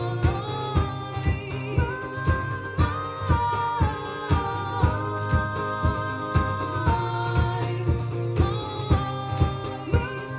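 Live band playing a passage without sung words. There is a steady beat and long held melody notes that step up and down in pitch.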